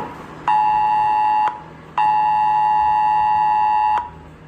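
Mobile phone's emergency alert tone, signalling a cell-broadcast emergency alert sent as a trial run. Two close high pitches sound together in a pulsed pattern: about a second on, a short gap, two seconds on, another short gap, then it starts again at the very end.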